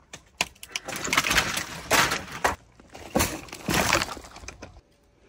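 Dry reed-cane fence panels being pulled down: a dense crackling and rustling of the canes, with several louder crunches over about four seconds that stop just before the end.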